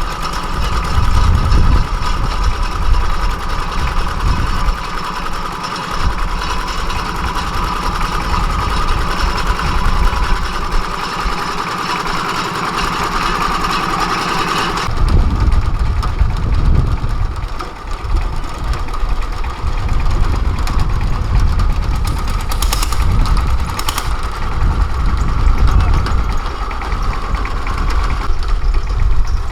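Engine running steadily with a deep rumble, its sound changing abruptly about halfway through.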